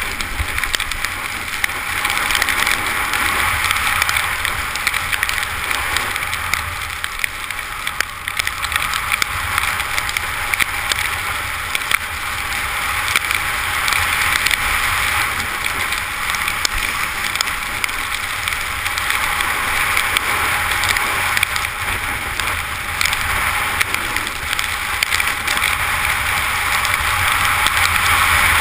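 Skis sliding over fresh snow in a steady hiss, with wind rumbling on the helmet camera's microphone throughout the run down.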